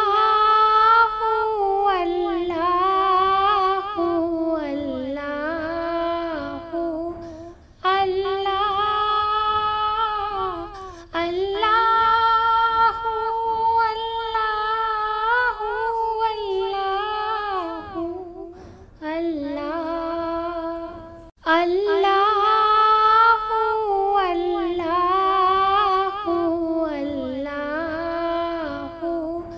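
A woman singing a naat solo, in long held, ornamented phrases with brief breaks between them.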